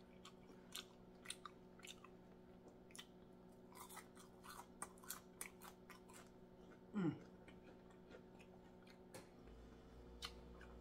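Faint chewing of fried fish, with soft irregular crunches and mouth clicks. About seven seconds in, a short falling "mm" of enjoyment.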